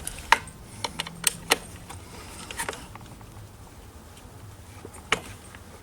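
Scattered sharp clicks and taps of a screwdriver and loose parts being handled during disassembly: about six in the first three seconds and one more near the end, over a faint low hum.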